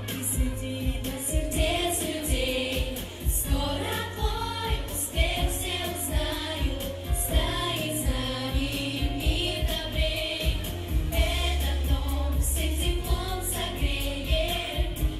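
A children's and teens' pop vocal group singing together into microphones over a pop backing track with a steady beat and bass.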